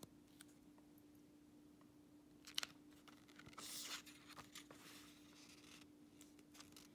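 Near silence: faint rustling and a few light clicks of a paper booklet being handled, over a low steady hum. A short soft rustle about halfway through is the loudest part.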